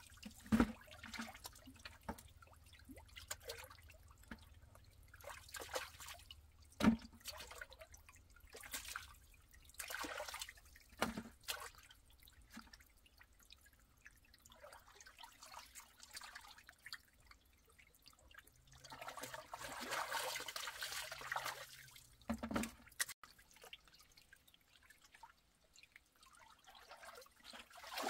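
Water splashing and trickling in irregular bursts, with a few dull knocks.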